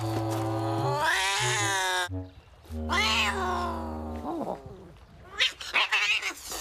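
A cat yowling: two long drawn-out cries, each about two seconds, rising in pitch, over steady low held tones. A few short sharp sounds follow near the end.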